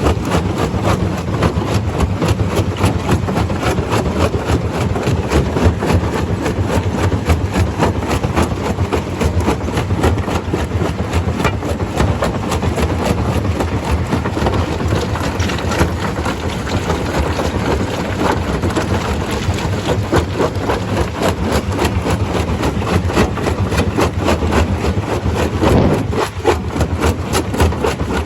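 Stone crusher machine running: a steady heavy machine drone with continuous rattling and clattering.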